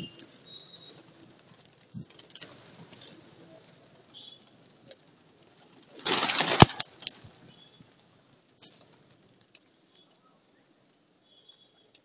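A large flock of feral pigeons fluttering and cooing, with the rustle of many wings. About six seconds in there is a loud rush of flapping lasting a second or so, then the sound dies down to a few scattered clicks.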